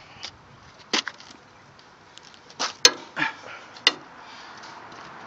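About five sharp metal clanks and clicks, the first about a second in and the rest close together between roughly two and a half and four seconds. They come from a breaker bar and socket working on the bolt-on tooth-pocket bolts of a stump grinder's cutter wheel as the bolts are loosened.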